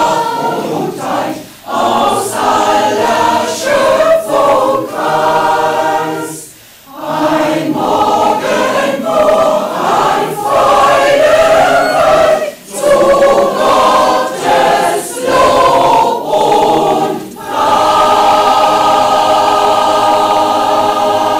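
Choir singing a cappella in several short phrases with brief breaths between them, then holding a long, steady closing chord from about eighteen seconds in.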